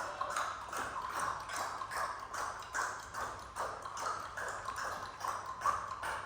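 A steady run of short, regular taps or steps, about three a second.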